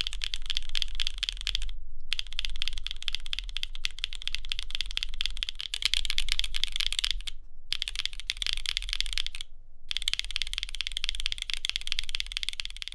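Fast typing on a mechanical keyboard: a dense run of clacky keystrokes, broken by three brief pauses.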